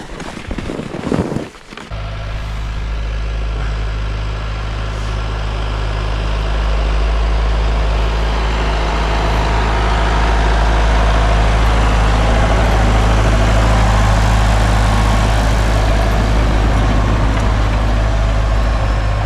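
An engine running steadily at a constant pitch. It starts abruptly about two seconds in and grows a little louder over the next several seconds.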